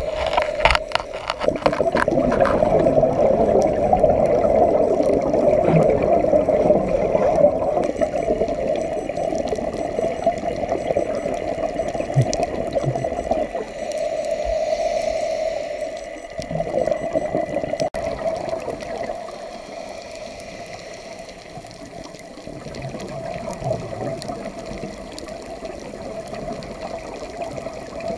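Scuba diver's exhaled air bubbling, heard underwater, swelling and easing in long waves and quieter in the later part.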